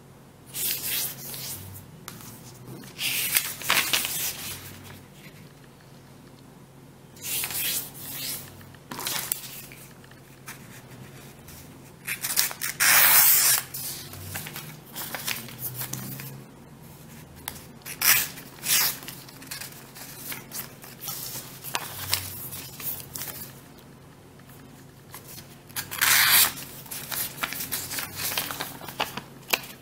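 A sheet of origami paper being folded, creased and cut into quarters: a series of short papery rasping strokes, with quieter handling of the paper between them.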